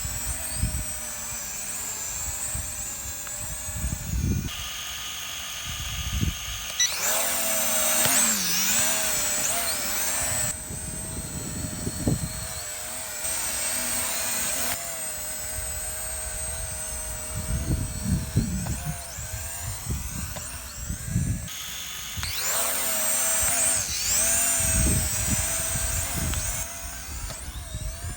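Small drone's propeller motors whining, the pitch swooping up and down at times as it manoeuvres, with gusts of strong wind buffeting the microphone.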